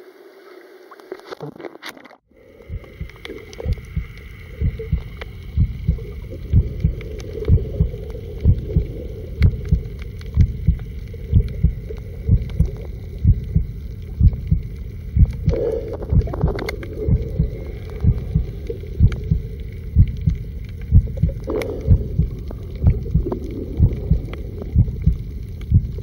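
Water sloshing around the camera for about two seconds, then after a sudden cut a steady, slow low thumping pulse, about one and a half beats a second, like a heartbeat, with a faint hum above it.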